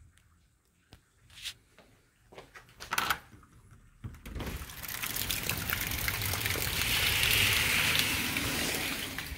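A few faint knocks and clicks, then from about four seconds in, heavy rain pouring down as a steady rushing hiss.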